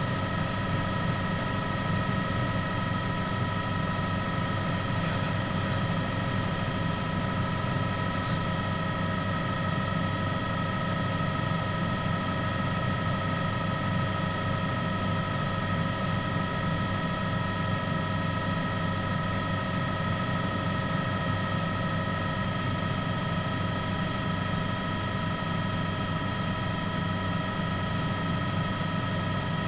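Steady engine and rotor noise of a helicopter, with a constant high whine over a low rumble.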